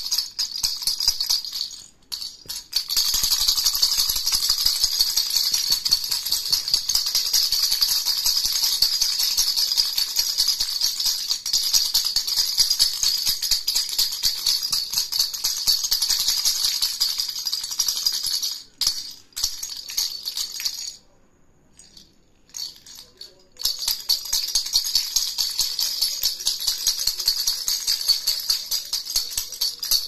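A plastic baby rattle (jhunjhuna) shaken rapidly, the loose pieces inside its hollow plastic ball making a continuous bright jingling rattle. The shaking breaks off briefly a couple of times and stops for about two seconds past the two-thirds mark, then resumes.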